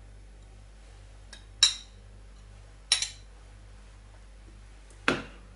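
A metal fork clinks twice against a ceramic dessert plate, a little over a second apart. Near the end there is a duller knock as the plate is set down on the worktop.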